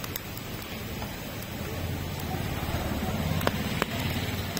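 Firewood fire burning under a grill of roasting maize cobs, with a few sharp crackles over a steady low rumble.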